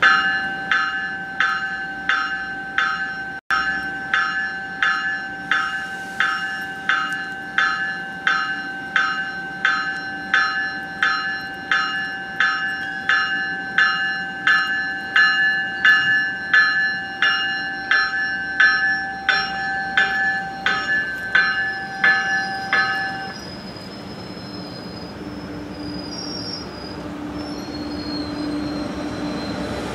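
Commuter train's warning bell ringing about twice a second as the train moves along the platform, stopping a little over 20 seconds in. After it, the bilevel coaches rumble past with a faint high wheel squeal.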